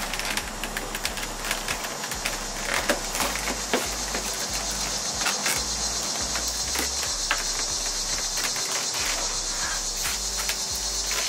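Scattered plastic clicks and knocks as a fog-light bezel is pushed and worked into the back of a Ford Fusion's plastic front bumper cover, over background music with a bass line.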